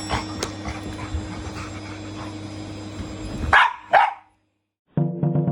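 Vacuum cleaner running with a steady hum while a dog makes short sharp noises at it, then barks twice loudly about three and a half seconds in. The vacuum stops, and after a short silence music begins.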